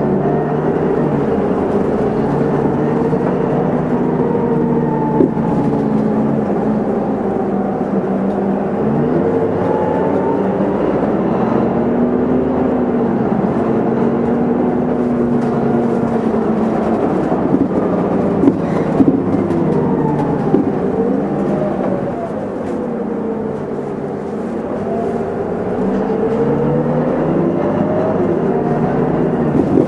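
Isuzu Erga low-floor city bus heard from on board. The diesel engine and drivetrain whine rises and falls in pitch several times as the bus speeds up and slows. A few sharp clicks and rattles come around the middle, and it goes quieter for a few seconds about three-quarters through.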